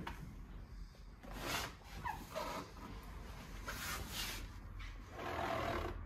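Quiet room tone with a few soft rustling swishes, about a second and a half in, around four seconds and again near the end.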